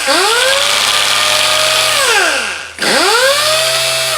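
Pneumatic orbital sander run twice on compressed air: each time a whine rises to a steady pitch, holds for about a second or two and winds down, over a hiss of air. It has a whistle and hum and is slow to start, which the owner puts down to dust clogging the air motor.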